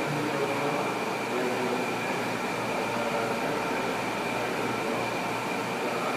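Steady machinery hum of a fish-tank room, with a thin high whine held over an even hiss.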